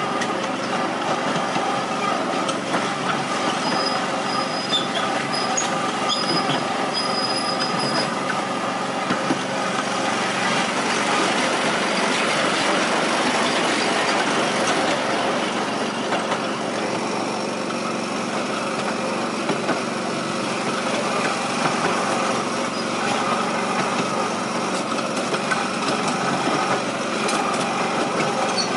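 7¼-inch gauge miniature railway locomotive running steadily along the track, a steady mechanical hum with the rumble of wheels on the rails. The noise grows rougher for a few seconds around the middle as the train crosses a small truss bridge.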